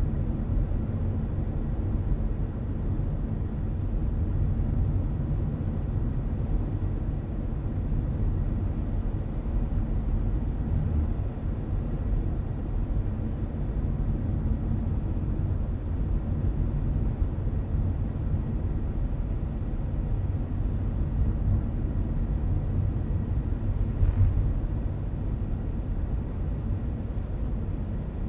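Car driving at steady speed, heard from inside the cabin: a constant low rumble of tyres on the road and the engine, with one brief knock near the end.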